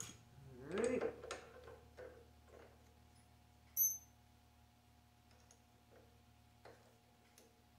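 Light metallic clicks and taps of steel tooling and a workpiece being handled in a milling-machine vise, with one sharp ringing clink near four seconds in, over a faint steady machine-shop hum.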